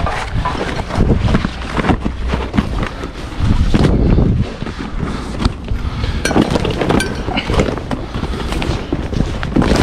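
Heavy, old curtain-sider trailer curtain being pushed back by hand, rustling and flapping with sharp cracks and clacks of its strap buckles, while wind buffets the microphone.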